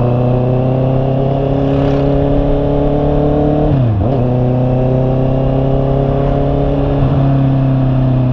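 Honda CB650R's inline-four engine running on the move, its note rising slowly under steady throttle. About four seconds in the pitch drops sharply and recovers, then climbs slowly again.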